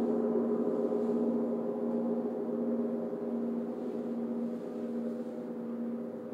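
Several large gongs ringing together in a sustained, shimmering wash of overlapping tones as they are played with a mallet. The sound holds steady and eases slightly near the end.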